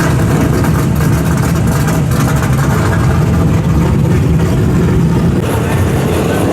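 Loud drag-racing car engine running steadily with a heavy, low rumble. It eases slightly about five and a half seconds in.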